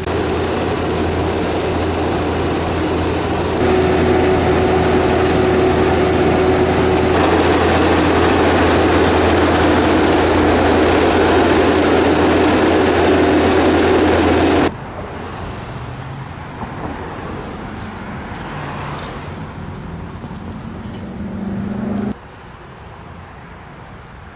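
Loud, steady engine and traffic noise with a low hum, which drops off abruptly about two-thirds of the way through. Quieter street noise with a few faint clicks follows.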